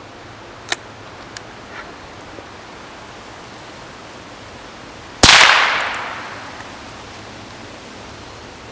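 A few sharp clicks as the homemade rebar-barrelled .22 LR rifle is loaded and closed, then a single gunshot about five seconds in, a sharp crack whose echo dies away over about a second.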